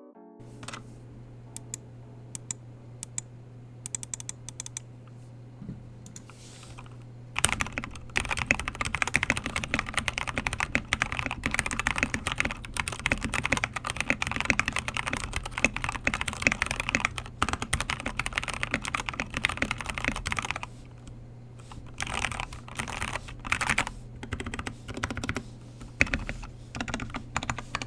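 Typing on a Keychron K6 mechanical keyboard with lubed Gateron brown switches, Akko keycaps and foam inside: a few scattered keystrokes, then fast continuous typing from about seven seconds in, easing to lighter typing after about twenty seconds. A steady low hum runs underneath.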